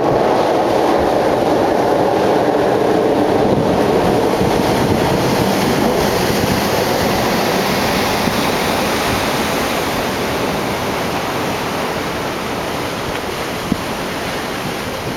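Steady wash of ocean surf breaking on a beach, slowly fading, with one brief click near the end.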